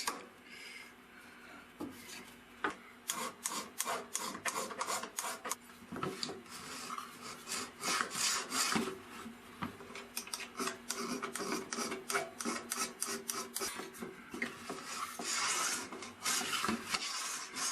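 Wooden table saw sled pushed back and forth along the saw table, its runners rubbing and scraping in the miter slots in many short strokes as the fit of the new guide is tested.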